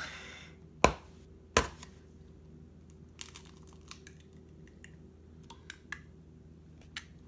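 An egg being cracked by hand: two sharp taps of the shell against a hard edge, about three quarters of a second apart, then faint small clicks and crinkles as the shell is pulled open.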